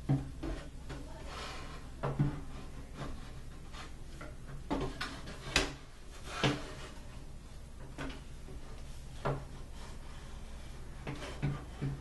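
Irregular knocks and scrapes of wooden dresser parts being handled and fitted into the frame, about eight in all, the loudest just past halfway.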